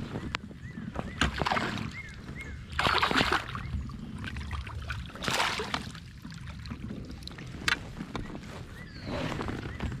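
Kayak paddle strokes in the water: a handful of splashy swishes a couple of seconds apart, over a low steady rumble.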